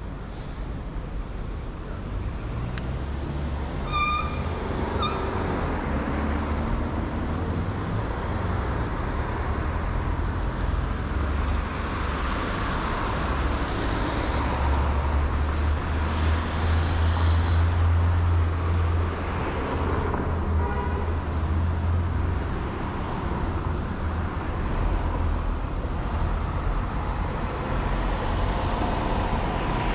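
Street traffic at a city intersection: cars and vans running past over a steady low engine rumble that grows heavier in the middle. There is a brief high tone about four seconds in.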